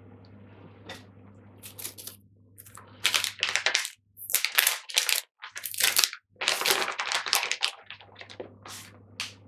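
Plastic pouch of hand-rolling tobacco being handled and opened: crinkling and rustling in a quick run of short bursts, loudest in the middle, with a few abrupt cut-outs to silence, over a low steady hum.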